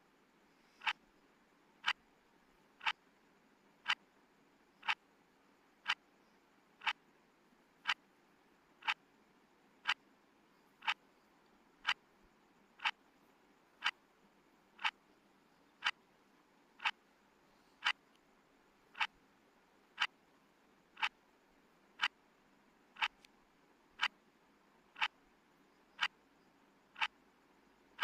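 Clock-style tick sound of a countdown timer, one sharp tick every second, evenly spaced.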